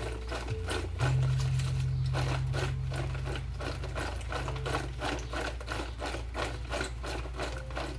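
Sliced bitter gourd rattling and tumbling in a plastic colander as it is shaken rhythmically to mix in salt, about three or four shakes a second. Low background music tones run underneath.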